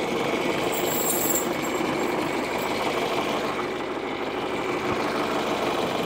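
John Deere 2355 tractor's engine running steadily at low speed while the tractor creeps slowly in reverse.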